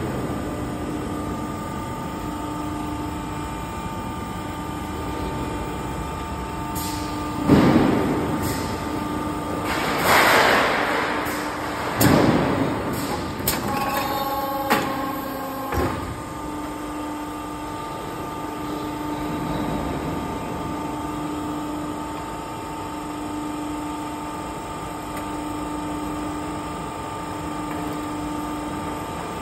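Fire extinguisher cabinet roll forming machine running with a steady hum. Between about 7 and 16 seconds in come a few loud metal clanks and a burst of rushing hiss.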